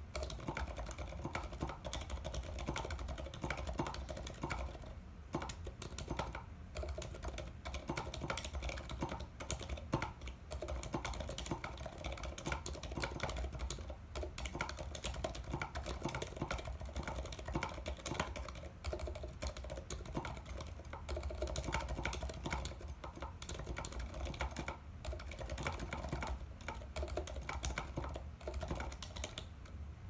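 Fast, continuous typing on a custom 60% mechanical keyboard with silent Zealio Zilent V1 67g switches, PBT keycaps, and a steel plate on rubber gasket strips in a maple case. The keyboard is propped up on a laptop, so the keystrokes resonate quite a bit.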